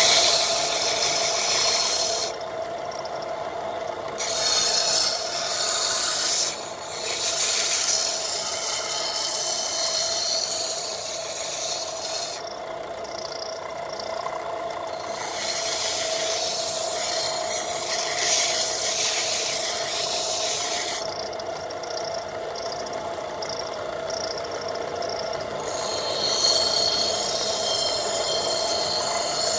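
Abrasive rubbing and scraping on wood as an old wooden shovel handle is taken down and sanded, over a steady hum.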